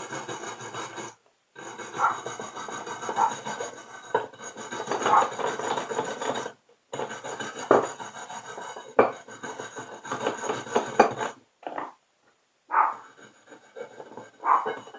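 Threads on the bottom end of a frost-free yard hydrant's pipe being scrubbed clean: irregular rasping, scraping strokes with a few brief pauses.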